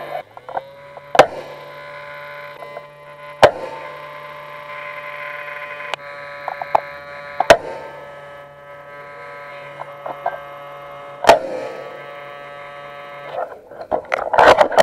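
Four sharp single cracks of airsoft rifle shots, a few seconds apart, over a steady electrical hum made of several tones. The hum stops near the end and a short burst of rustling handling noise follows.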